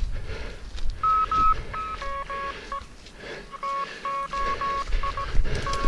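Morse code beeping from a radio direction-finding receiver: a pitched tone keyed in dots and dashes as the receiver picks up a fox transmitter's call sign. The keying starts about a second in, over low rumble from running.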